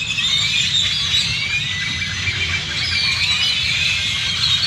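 A large flock of birds calling at once in the trees at dusk: a dense, overlapping chorus of chirps and whistles, with no single call standing out. A steady low rumble runs underneath.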